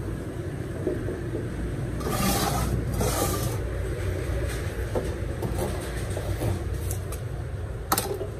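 Handling noise as a small arc welder's cable is gathered up and the welder is lifted and set down on a metal scale platform: a scraping rustle about two seconds in and a sharp knock near the end, over a steady low rumble.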